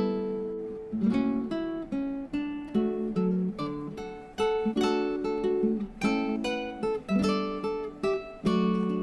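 Background music: acoustic guitar picking and strumming a gentle melody, notes struck in quick succession and ringing out.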